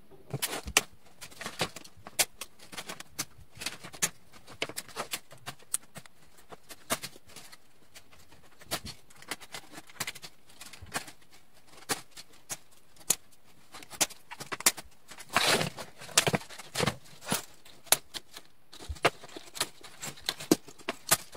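Scissors snipping the loose tails off plastic zip ties: a string of short, sharp clicks, irregular and about one or two a second, with a denser, louder patch of snips and rustling about three-quarters of the way through.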